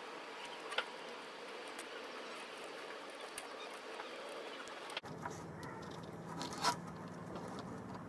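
Light clicks and small handling noises over a steady hiss, with a low hum coming in about five seconds in.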